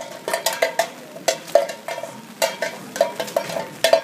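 Empty tin can kicked and clattering along wet asphalt: a string of irregular metallic clanks, about three or four a second, each with a short ring.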